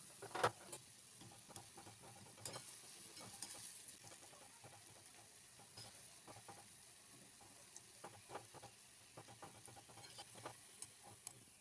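Palm-fruit fritters deep-frying in hot oil: a faint, steady sizzle with scattered pops and crackles. A wire skimmer stirs them in the pan.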